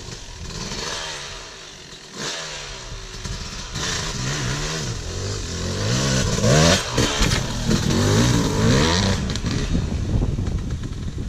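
Dirt bike engine revving up and down over and over, getting louder as the bike rides up close and works its way over a small gap jump, then easing off near the end.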